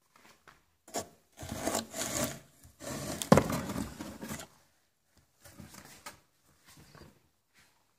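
Scraping and rubbing on cardboard in irregular bursts, loudest over the first half with one sharp knock in the middle, then fainter scrapes near the end.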